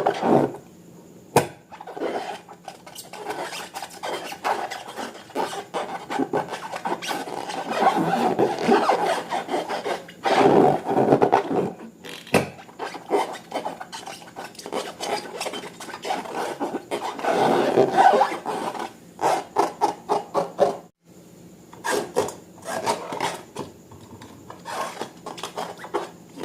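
Slime being squished and kneaded by hand: irregular sticky rubbing with many small clicks, coming in uneven surges.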